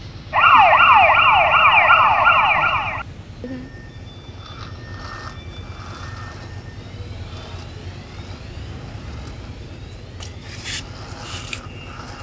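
Toy electronic siren: a fast rising whoop repeated about three times a second, loud for about two and a half seconds, then cutting off abruptly. A few faint clicks follow near the end.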